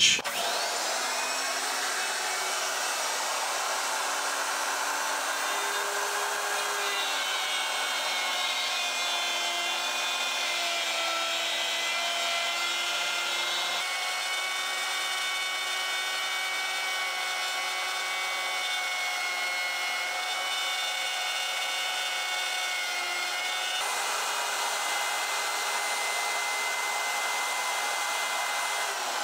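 Handheld plunge router spinning up, then running steadily while its bit cuts a dado in plywood along a clamped jig. The whine shifts in pitch a few times as the router is pushed down and back through the cut.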